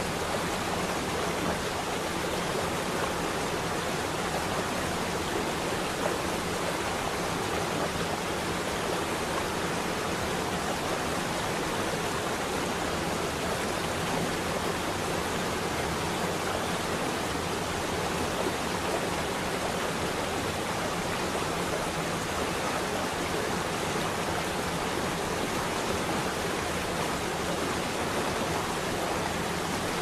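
Decorative fountain's many water jets spraying up and falling back into a shallow pool, a steady splashing rush of water.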